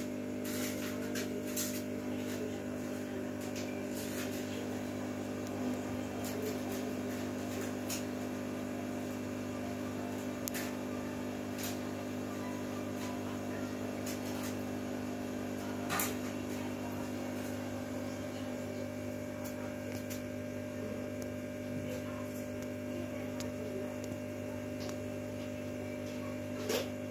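Steady electric hum of an aquarium air pump, with air bubbling through the air stone and sponge filter and scattered small pops of bubbles at the surface.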